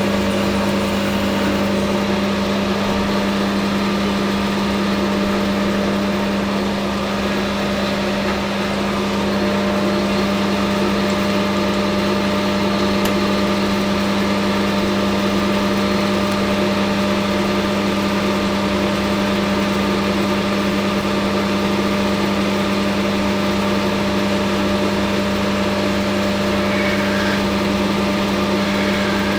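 Hafco Metal Master AL960B metal lathe running steadily at speed, a constant motor and gearbox hum.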